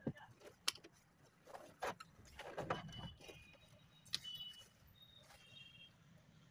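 A few light clicks and short rustles of hands handling a wiring connector and harness inside an open car door.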